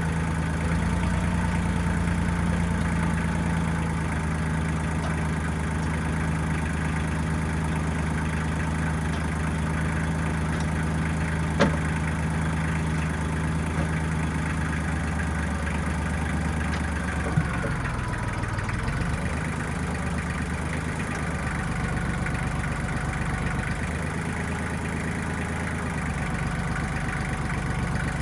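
1995 Kubota backhoe's diesel engine running steadily, with a single sharp knock a little before halfway and the engine note dipping briefly and recovering about two-thirds of the way through.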